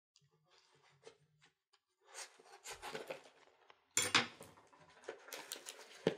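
Small cardboard mailing box being cut and pulled open by hand, cardboard and packing tape scraping and tearing. A few faint clicks come first, then irregular rustling and ripping, sharpest about four seconds in and again a second or so later.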